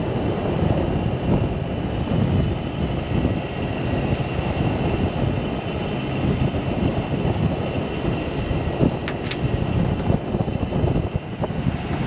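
Headwind of nearly 25 knots rushing over the deck and buffeting the microphone, over the boat's diesel engine running hard at about 2,000 rpm.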